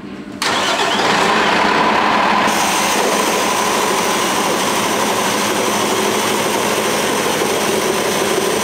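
Fire truck's diesel engine starting and running steadily. About two seconds later a loud rushing hiss joins in, the Trident automatic air primer blowing air to pull the dry pump and empty suction hoses into prime.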